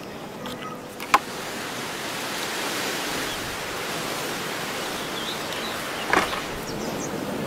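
Steady rushing noise, with a sharp knock about a second in, and a cleaver chopping through a sausage onto a wooden cutting board just after six seconds.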